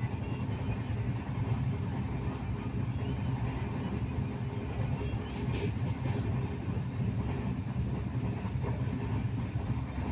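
Steady rumble of a moving train, heard from inside the carriage at the window.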